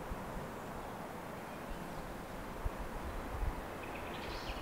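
Steady low rumble and hiss of background noise, with a few soft low thumps partway through.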